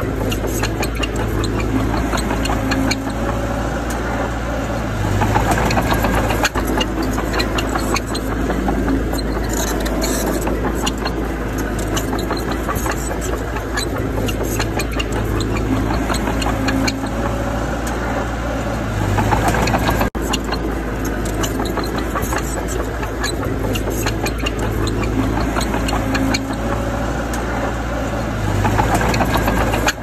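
Heavy diesel engine of a bulldozer running under load, with a steady low drone that swells louder three times, roughly every twelve to fourteen seconds.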